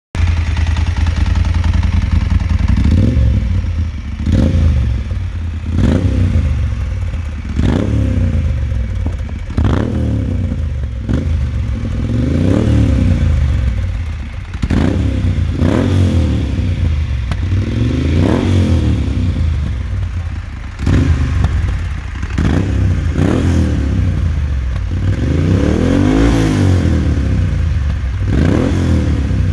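Moto Guzzi Stelvio 1200's transverse V-twin running through a Mistral Exagon aftermarket silencer with its dB-killer baffle removed. It idles and is blipped up in revs and back down over and over, about every one and a half to two seconds.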